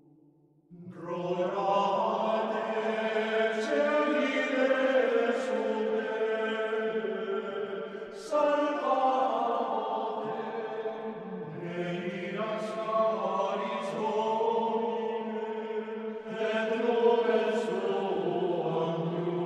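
Choral background music: voices singing a slow, held chant that comes in about a second in, with new phrases starting every few seconds.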